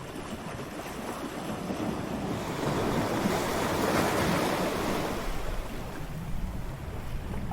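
Ocean waves breaking on a shore: surf noise that builds from about two and a half seconds in, peaks near the middle and washes back down.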